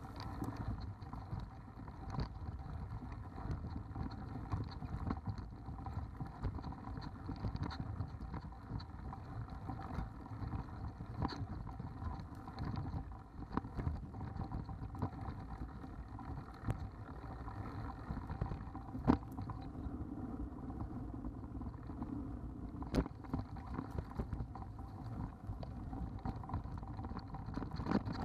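Mountain bike rolling down a rough dirt singletrack, picked up by a bike-mounted action camera: a steady low rumble of tyres and frame with constant rattling and knocks over rocks and roots, and two sharper knocks about two-thirds and four-fifths of the way through.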